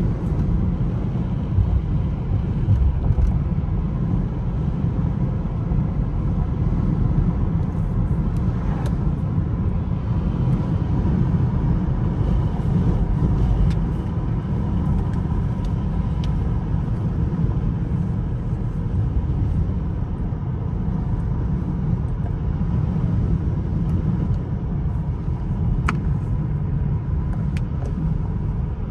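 Steady low rumble of a car driving, heard from inside the cabin: engine and tyres on a wet road, with a few faint clicks.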